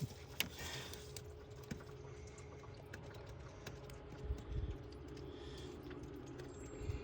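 Scattered light clicks and taps of hand tools on the water pump bolts, with a couple of soft knocks about halfway through, over a faint steady hum.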